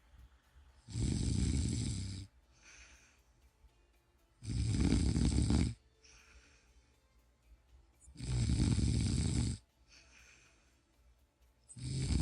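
A person snoring in a steady rhythm: three loud snores about three and a half seconds apart, each followed by a softer, breathy out-breath, with a fourth snore starting near the end.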